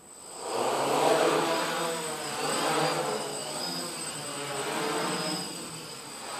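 Quadcopter's electric motors and propellers spinning up about half a second in as it lifts off, then a steady buzzing whine that rises and falls in pitch and loudness with the throttle as it hovers and flies.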